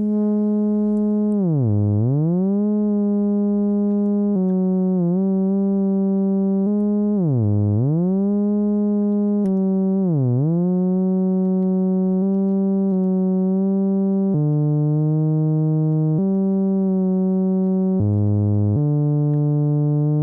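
Behringer System 55 modular synthesizer sounding one continuous, buzzy oscillator tone while the third row of its sequential controller is tuned. The pitch moves in steps, and three times, about 2, 7.5 and 10 seconds in, it swoops deeply down and back up.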